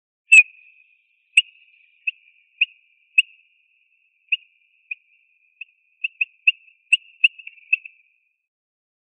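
Eurasian bullfinch singing: a string of about fifteen short, clipped piping notes at one pitch, unevenly spaced at first and coming in a quicker run near the end.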